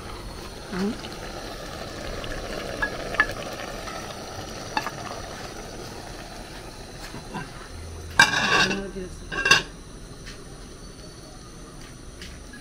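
Wooden spatula stirring thick egusi soup in an aluminium pot on a gas burner, the soup simmering with a steady sizzle and a few light scraping clicks. Two short, loud cries break in about eight and nine and a half seconds in.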